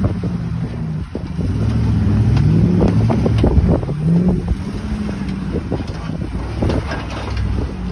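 Off-road vehicle's engine running on the trail, revving up twice with rising pitch, with scattered knocks and clatter.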